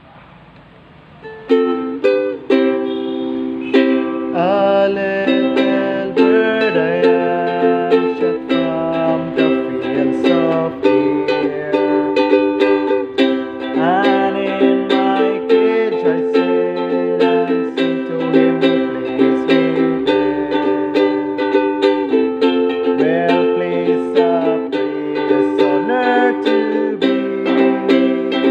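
Ukulele playing chords in a steady rhythm, starting about a second and a half in.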